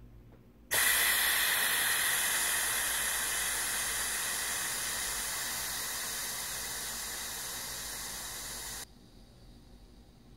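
Steam hissing out of the Instant Pot Max's automatic lid release valve as the cooker vents its pressure. The hiss starts suddenly about a second in, slowly eases off, and cuts off sharply about nine seconds in.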